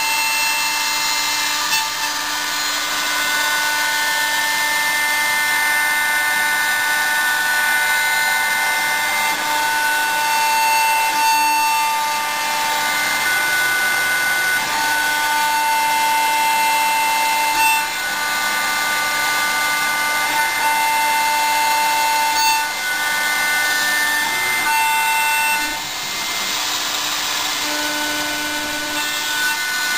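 CNC milling machine cutting with its spindle running steadily, a continuous machining noise with high whining tones that start and stop every few seconds as the servo-driven axes move.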